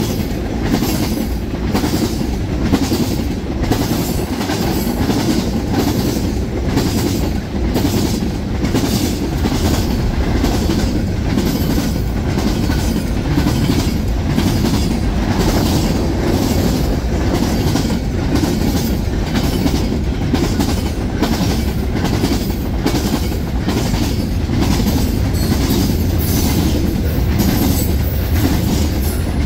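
Freight train rolling past close by, its tank cars, boxcars and hoppers making a steady low rumble. Over the rumble comes a regular clickety-clack of wheels crossing rail joints, repeating evenly.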